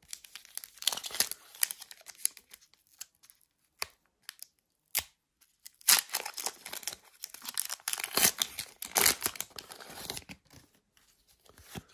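Foil wrapper of a Pokémon TCG booster pack crinkling and tearing as it is ripped open by hand. A short spell of rustling is followed by a pause, then a longer, denser spell of tearing and crinkling from about six seconds in.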